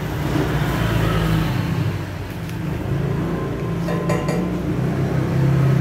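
Machine-shop background: a steady, wavering low mechanical hum under a wash of noise, with light metallic clinks of steel turbine parts being handled.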